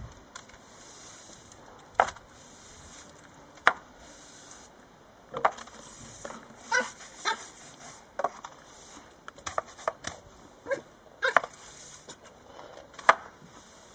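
Yorkshire terrier puppy's short yips, scattered irregularly, mixed with a push broom knocking on tiled steps.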